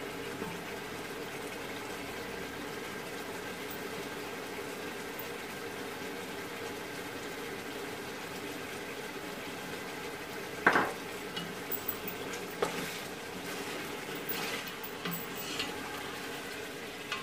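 Mutton pieces cooking in oil and their own juices in an aluminium pot, a steady bubbling sizzle, with one sharp knock about ten seconds in and a few lighter clicks after it.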